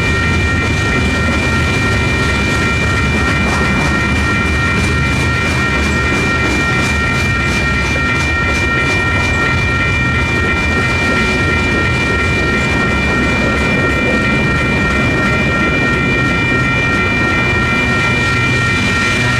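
Freight cars of a Union Pacific manifest train rolling through a grade crossing, with a steady rumble and a run of wheel clicks over the rail joints in the middle. The crossing's WCH electronic bells ring steadily over it.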